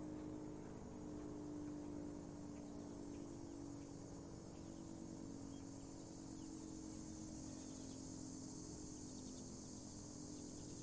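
Crickets chirping in a steady high trill over a faint, low, steady hum.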